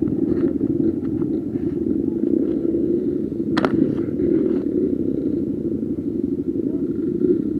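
Dirt bike engines running at idle, a steady rumble, with one sharp knock about three and a half seconds in.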